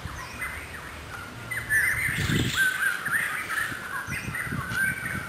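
Several birds chirping and calling over one another in short, quick notes, busiest around the middle, with a few soft low knocks underneath.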